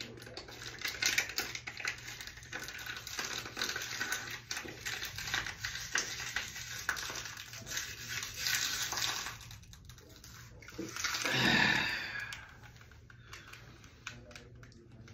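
A man chugging water from a plastic bottle: gulping and sloshing, with the bottle crinkling and clicking as it empties. One louder, longer noise comes about eleven seconds in, as he finishes.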